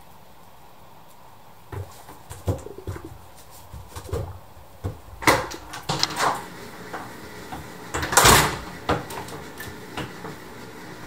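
Scattered knocks and clicks of a door being handled and opened in a small quiet room, with one louder, brief scraping noise about eight seconds in.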